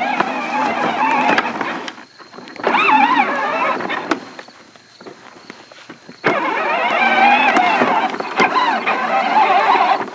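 Battery-powered Polaris ride-on toy ATV: its electric drive motors and gearbox whine in a wavering pitch as it drives on grass. The whine starts and stops abruptly three times as the pedal is pressed and let go, the last run the longest.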